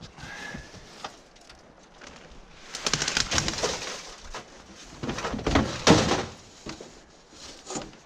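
Junk clattering and scraping as it is shovelled and tossed out of an RV, in two busy bursts: about three seconds in, and louder around five to six seconds. A brief squeak comes at the very start.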